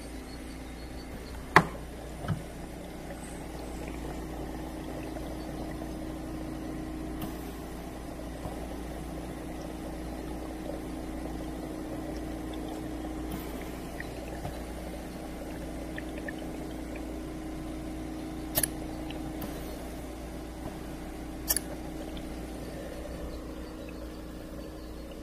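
Olive OLV-5 oxygen concentrator running with a steady hum while oxygen bubbles through the water in its humidifier bottle. A few sharp clicks stand out, twice near the start and twice in the second half.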